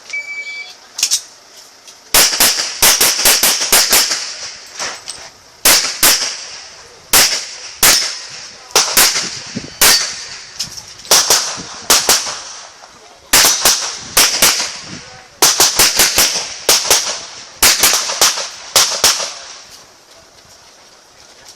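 A short electronic shot-timer beep, then gunshots fired in quick strings of two to several shots, with short pauses between strings, each shot ringing briefly.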